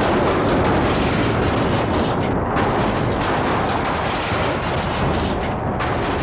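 Single-engine propeller warbird sliding gear-up along the runway on its belly, a loud, steady crackling scrape of the airframe and bent propeller grinding on the pavement: a wheels-up emergency landing.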